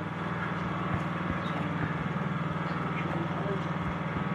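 An engine idling steadily with an even, low pulsing hum, and a few soft knocks over it.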